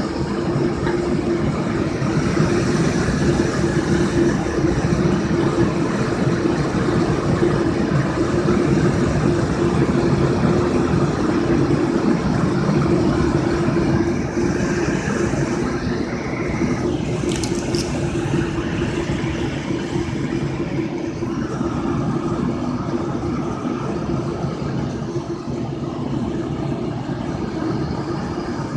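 Wind tunnel fan running steadily, a constant rush of air with a steady hum, blowing over a 1/12-scale RC car wheel. A few faint ticks come about two-thirds of the way through.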